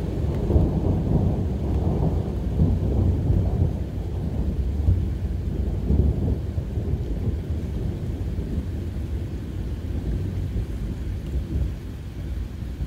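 Thunder rumbling over steady heavy rain, loudest in the first half and slowly dying away.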